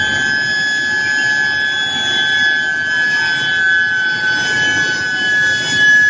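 Induction coils of a billet reheating furnace giving off a steady high-pitched whine, with a couple of close tones and higher overtones, while heating red-hot steel billets, over a low rumble from the roller line.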